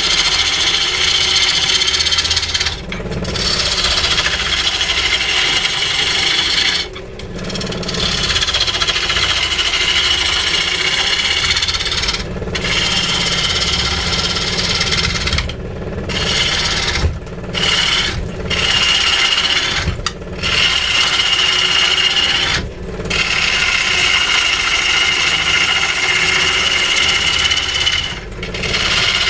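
A tool cutting and scraping into weeping-willow wood in long, continuous passes: a loud hissing rasp with a steady high ring, broken by brief pauses every few seconds.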